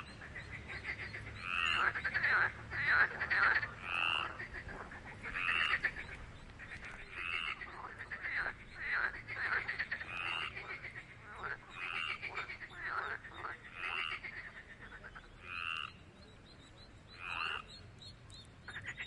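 Frogs calling. Short upward-sliding croaks repeat about every one and a half to two seconds, with rapid pulsed trills in between.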